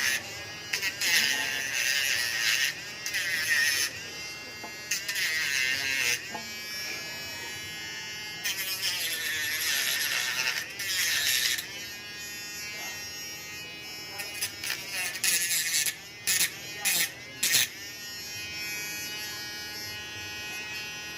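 Small electric power tool trimming and sanding carbon fibre. A steady motor whine alternates with loud harsh grinding bursts as the tool bites into the material, with several short choppy bursts near the end.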